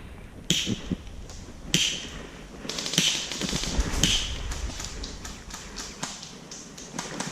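Scattered light taps and clicks, with four short hissing bursts in the first four seconds.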